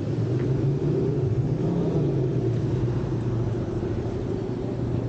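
Steady low rumble of city street noise with an unbroken low drone.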